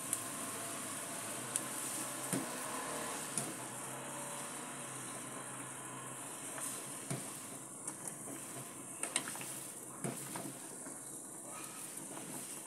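Sayur asem vegetable soup boiling hard in an aluminium pot, a steady bubbling hiss. A ladle stirs it, knocking against the pot a few times, mostly in the second half.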